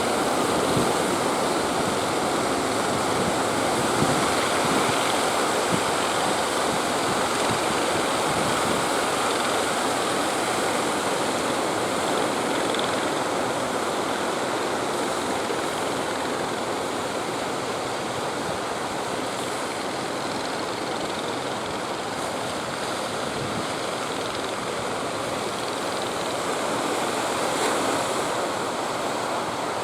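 Steady rush of sea surf breaking, mixed with strong wind buffeting the microphone.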